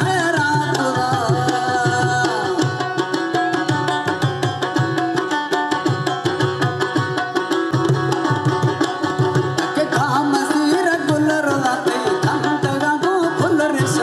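Background music: a South Asian song with tabla drumming under a wavering sung melody, with dense, fast drum strokes throughout.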